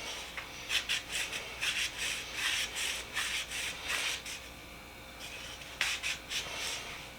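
Hand tool rubbing in short, quick back-and-forth strokes, about two a second, stripping paint softened by paint stripper. There is a pause of about a second a little after the middle, then a few more strokes.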